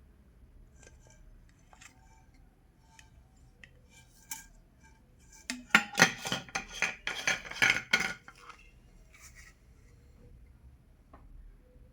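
Glass water bottles being handled, with light scattered clicks and taps, then about six seconds in a quick run of clinks and knocks with short ringing that lasts about two seconds.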